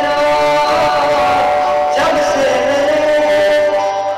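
Male solo vocalist singing long, held notes through a microphone and PA, with guitar accompaniment. A new phrase starts about two seconds in.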